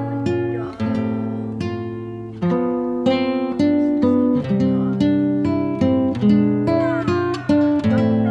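Background music: acoustic guitar playing plucked notes and chords, each note ringing and fading as the next begins.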